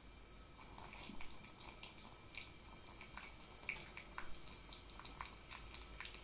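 Water dripping from a bamboo tea ladle into a ceramic tea bowl: a dozen or so small separate drops at irregular intervals, starting about a second in, as hot water is added to the matcha for thick tea.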